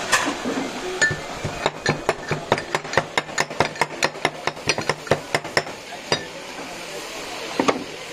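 Stone pestle pounding in a black stone mortar, crushing dried red chili and onion: a quick run of sharp knocks, about five a second for about four seconds, with a few single knocks before and after.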